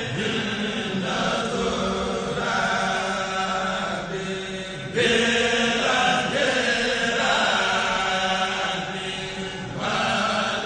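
A Mouride kourel, a choir of men, chanting a religious poem (khassida) in unison without instruments. A new phrase comes in suddenly louder about halfway through.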